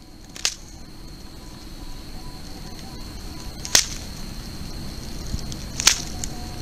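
Night outdoor ambience: a steady high-pitched drone of night insects, with three sharp clicks about half a second in, midway and near the end.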